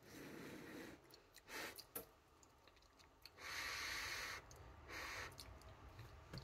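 Faint breaths and mouth sounds of a person eating a spoonful of hot quinoa cereal with banana: a few soft noisy breaths, the longest about halfway through.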